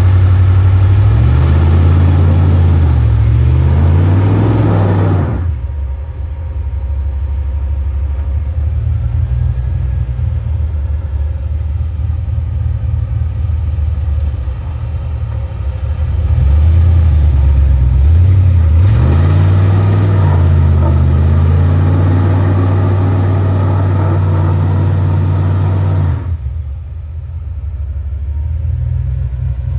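Jeep Comanche pickup's engine working through slow off-road driving, revving up and easing back twice, the pitch rising and falling, and dropping off quieter a little after five seconds and again near the end.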